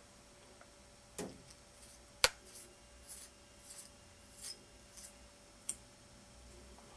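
Small plastic clicks and light rubbing as a lens adaptor is turned and fitted together by hand, with one sharp click a little over two seconds in and softer ticks scattered through.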